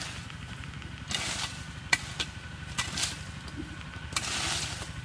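Footsteps crunching on dry leaf litter, with a sharp snap about two seconds in, then dry leaves rustling as they are handled at ground level near the end, over a low steady rumble.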